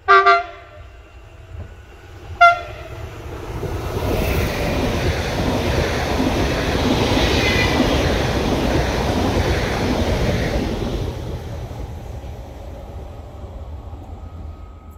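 PKP Intercity ED160 (Stadler FLIRT) electric multiple unit sounding two short horn blasts, the second about two seconds after the first, then running past with a rush of wheels on rail that swells, peaks mid-way and fades out.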